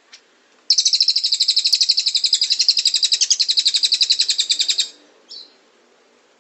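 Cililin bird singing: a short chip, then a loud, fast trill of about ten high notes a second held for about four seconds, then another short chip.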